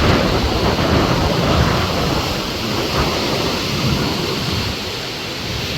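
Strong wind buffeting the microphone: a loud, gusty rumble that eases slightly near the end.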